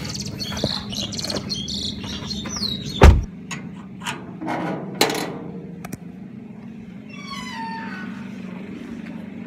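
Car driving in town traffic, heard from inside the cabin: a steady engine and road hum with scattered clicks and rattles. A single loud thump comes about three seconds in, and a high falling chirp-like call is heard near the end.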